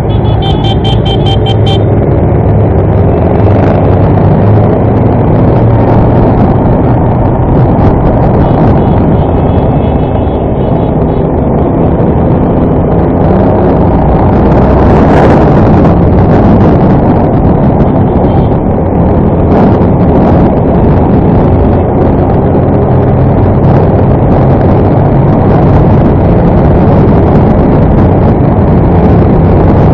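Onboard sound of a motorcycle being ridden: the engine running steadily under loud wind noise on the mounted camera's microphone.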